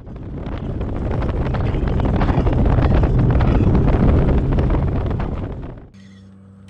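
Wind rushing over the microphone of a bass boat running across open water, with the boat's running noise underneath. It builds over the first second and cuts off abruptly near the end.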